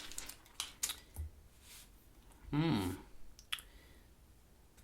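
Scattered sharp clicks and light handling noises as protective plastic is peeled off a new smartphone, with a short murmured voice sound about halfway through.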